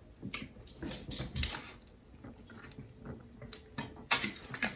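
Soft handling clicks from a plastic soda bottle, then a quick run of gulps and swallows as someone drinks from it near the end.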